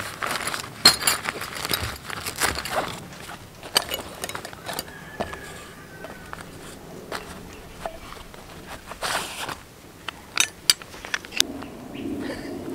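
Metal tent stakes clinking and a nylon stake bag rustling as the gear is rummaged through by hand, with a run of sharp metal clinks at the start and a few more near the end.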